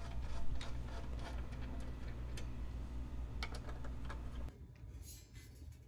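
Small screwdriver working the screws out of an amplifier's top cover: scattered small metallic ticks and clicks over a steady low hum, which drops away about four and a half seconds in.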